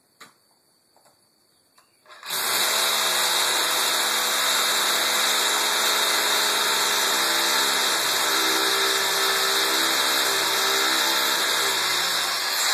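Hammer drill boring into concrete: it starts about two seconds in and runs steadily at full speed.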